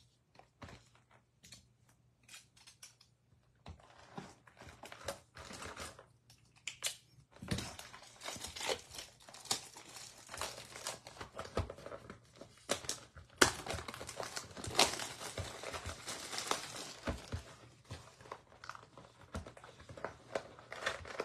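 Plastic wrapping crinkling and tearing as a sealed baseball-card hobby box is unwrapped and opened. A few light taps and clicks come first, then near-continuous crinkling from about seven seconds in.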